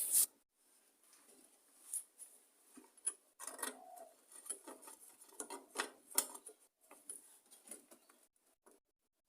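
Faint, irregular clicks and taps of metal parts and tools being handled as a replacement recoil starter housing is fitted and bolted onto a lawn mower engine.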